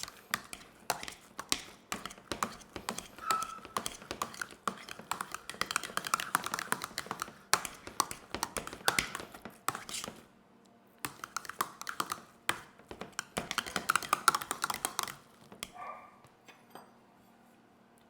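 Rapid, irregular tapping and clicking of kitchen utensils while garlic is added to the food, with a short pause about ten seconds in, stopping near the end.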